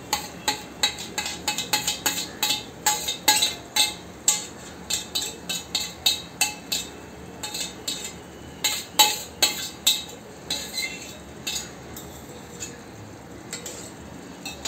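A long steel spoon clinking and scraping against a steel plate and a stainless-steel kadai as mashed roasted brinjal is scraped off the plate into the masala and mixed in. The clinks come thick and fast at first and grow sparser from about ten seconds in.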